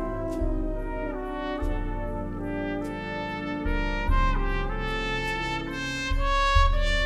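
Solo trumpet playing a melody in held notes over a wind band's brass and woodwind accompaniment, with the low bass notes changing every second or two.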